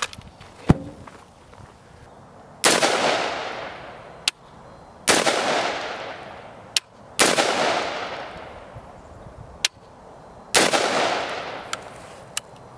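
Four loud rifle shots about two to three seconds apart, each followed by a long fading echo, with short sharp cracks in between.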